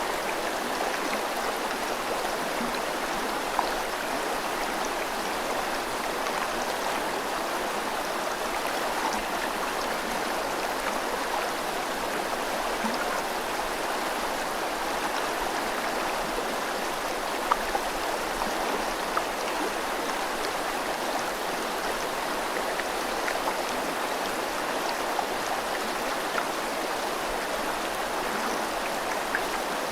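A river running steadily with rain: an even, constant rush of water, with a few brief ticks standing out here and there, the sharpest a little past halfway.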